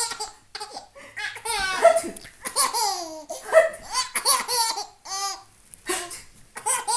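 A young child laughing in several high-pitched bouts with short breaks between them.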